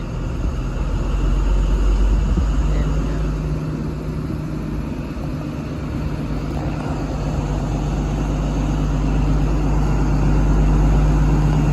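Diesel engine of an HST Class 43 power car running under power as the train pulls away: a steady low drone that gradually gets louder.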